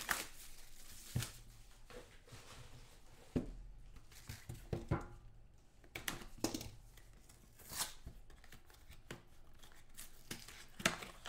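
Plastic shrink wrap being slit and torn off a sealed trading-card box, heard as a handful of short, scratchy rips and crinkles spaced a second or more apart.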